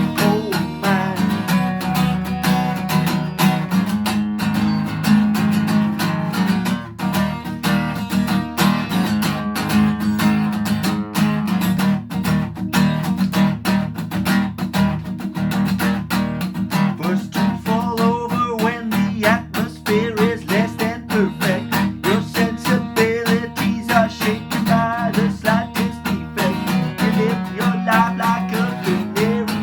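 Acoustic guitar strummed in a fast, steady rhythm through an instrumental passage, with melodic lines picked out over the strumming in the second half.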